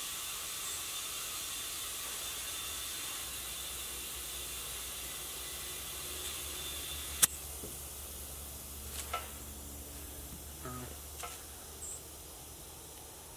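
Compressed air hissing steadily while a car tire is aired up from a compressor, slowly fading, with one sharp click about seven seconds in and a few faint ticks after.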